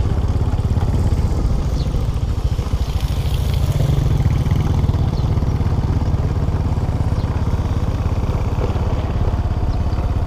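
Small motorcycle engine running at a steady speed while riding, a continuous low rumble with rapid even firing pulses.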